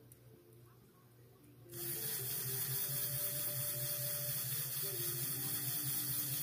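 Small electric motor and gear train of a Kato D51 N-scale locomotive running with a steady whirring hiss, powered through a wire held against the tender wheels during a test run. It starts abruptly nearly two seconds in.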